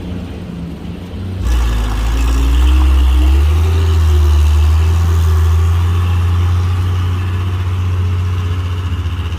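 Truck engine running low and steady, then about a second and a half in it gets louder and revs up, its pitch rising for a couple of seconds before holding steady under load.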